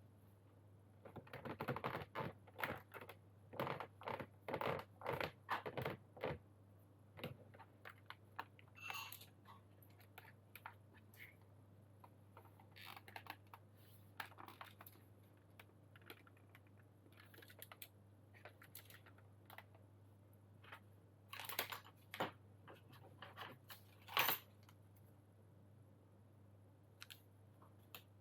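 Irregular clicks and plastic knocks from handling a partly built GAS67 keyboard as its frame is fitted. The clicks come in a dense run in the first few seconds and in a second loud group about three-quarters through.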